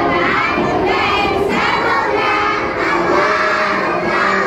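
A group of young children singing together in unison, loud and continuous, with held notes.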